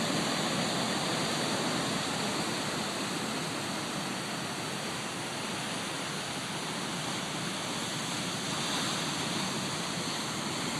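Ocean surf: a steady rush of breaking waves and wash that eases slightly midway and swells again later.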